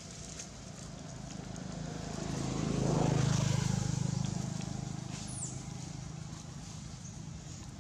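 A motor vehicle passing by: a low engine hum that grows louder to a peak about three seconds in, then fades away.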